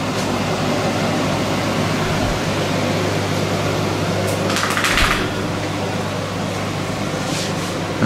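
A steady low machine hum with a hiss over it, and a brief scuffing rustle about four and a half seconds in.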